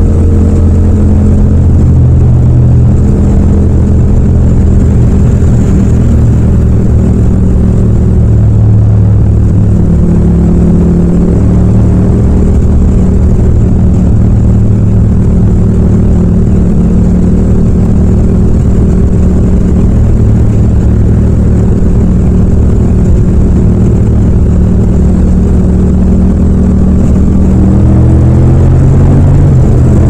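Yamaha MT-07's parallel-twin engine pulling steadily in fifth gear at highway speed, heard from the rider's seat without wind noise. The engine note climbs near the end as the bike accelerates.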